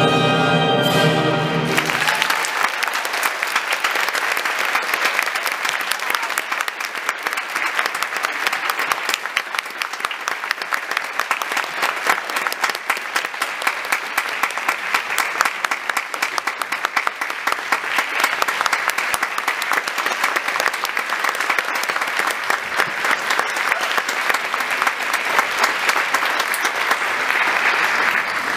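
Orchestral music ends on its last chord about two seconds in, and an audience bursts into long, dense applause that cuts off abruptly at the end.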